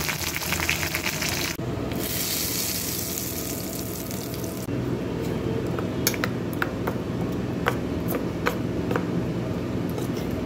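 Mustard seeds, dried red chillies and curry leaves sizzling in hot oil in a kadai for the first few seconds, briefly dipping about a second and a half in. After that, a metal spoon clicks and scrapes against a steel bowl as the tempering is stirred into the chutney.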